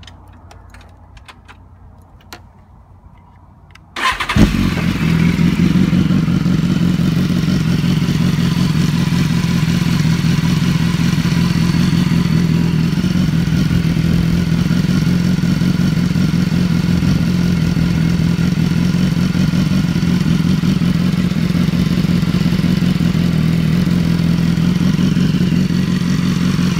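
A few faint clicks, then about four seconds in a 2015 BMW S1000RR's inline-four engine fires up through an Arrow titanium slip-on exhaust with its baffle removed. It settles into a steady, loud idle at operating temperature.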